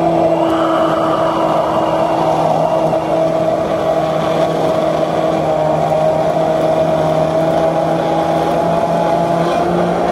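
Abuler 800W immersion hand blender running steadily, its motor humming at an even pitch while the stainless-steel blade shaft blends a liquid in its beaker.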